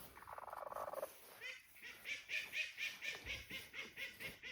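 Broody frizzle bantam hens and their newly hatched chicks calling: a harsh, rasping grumble for about a second, then a fast, even run of high peeps, about five a second.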